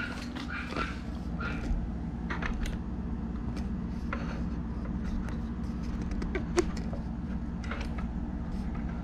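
Steady low fan hum, with scattered light clicks and taps from handling and a sharper click about six and a half seconds in.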